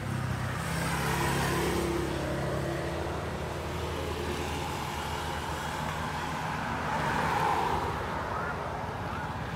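Road traffic: motor vehicles passing by on the road, a steady engine hum with tyre noise that swells about a second in and again near the end.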